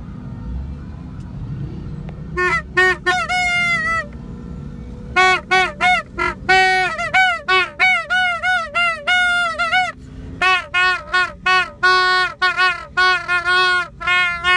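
Plastic toy trumpet (baja) blown in a long series of loud toots, some short and some held. The pitch bends at the start and end of each note, with a couple of short pauses. Before it starts, about two and a half seconds in, there is only a low rumble.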